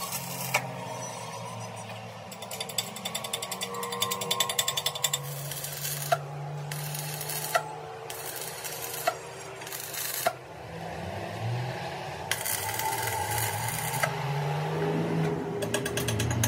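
Stick (arc) welding: the electrode's arc crackles and sizzles in a long burst early on, then several shorter bursts as a steel bar is tacked onto a steel plate. A low hum runs underneath.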